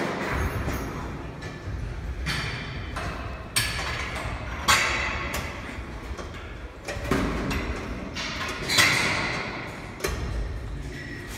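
Lat pulldown cable machine working through repetitions: the cable running over its pulleys and the weight stack lifting and settling, in a burst of sliding noise every second or two.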